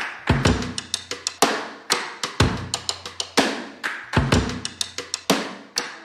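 Drum-led intro music: a drum kit beat, a deep kick drum about once a second with snare and quick crisp hi-hat and cymbal hits between.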